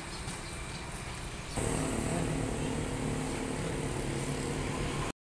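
A motor vehicle engine running at a steady pitch, coming in about a second and a half in over background street noise, then cut off abruptly near the end.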